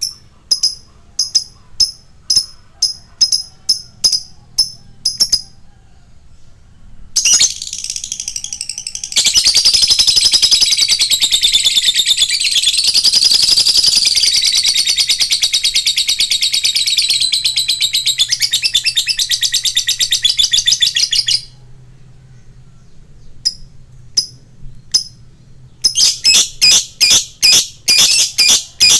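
Lovebird singing: sharp repeated chirps, two or three a second, then a long unbroken rapid trilling chatter lasting about fourteen seconds, then quick chirps again near the end.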